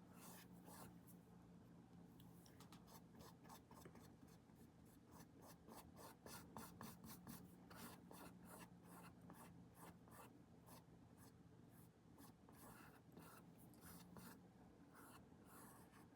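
Faint, quick scratchy paintbrush strokes, a few a second, as paint is scrubbed onto the painting surface, over a faint steady low hum.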